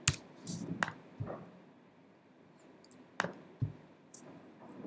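A handful of separate clicks from a computer's keys or mouse buttons, spaced irregularly, about six in all over a quiet room.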